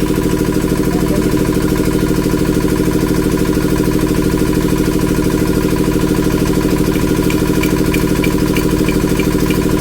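Vehicle engine idling steadily, with an even pulsing beat.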